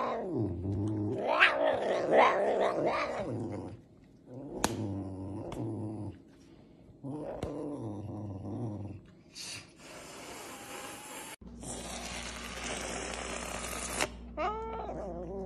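Serval growling over its food in several drawn-out, wavering calls, then a long hiss, and near the end a quick run of short, high chirps.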